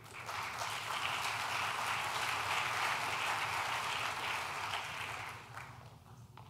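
Audience applauding to welcome a speaker, a dense patter of many hands that dies away after about five and a half seconds.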